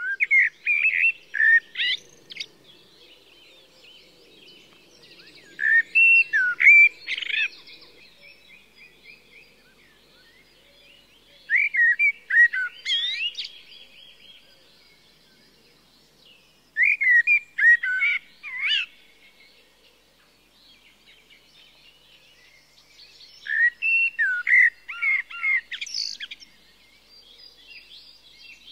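A songbird singing clear, warbling phrases of about two seconds each, five times with pauses of several seconds between, over faint background birdsong.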